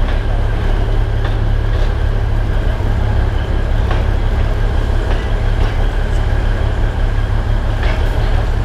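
A train on the Alishan Forest Railway running, with a steady heavy low rumble of the DL-41 diesel locomotive and the running gear. A few short sharp clicks come at irregular intervals.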